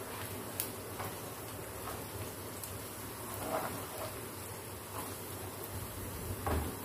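Chopped onions and whole spices sizzling in hot oil in a non-stick wok. A spatula stirs them, scraping and tapping the pan now and then, louder about three and a half seconds in and again near the end.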